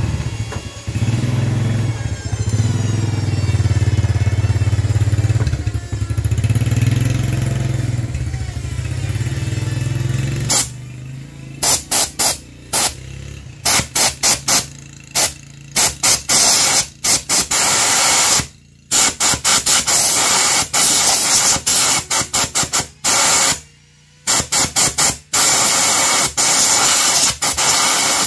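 Compressed air from an air compressor blow gun hissing into a motorcycle engine's oil drain hole to blow out the last of the old oil. It comes first in many short spurts, then in longer blasts about two thirds of the way in. A steady low hum runs under the first ten seconds or so.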